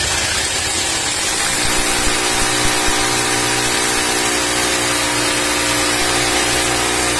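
Corded hammer drill boring a 10 mm hole into a masonry wall, running steadily under load with the whine of its motor.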